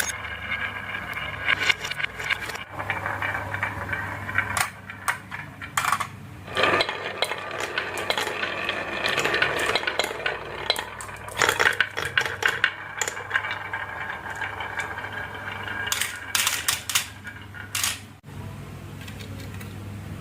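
Marbles rolling and clattering down a HABA marble run, a dense stream of clicks and rattles that is busiest around the middle and stops abruptly near the end.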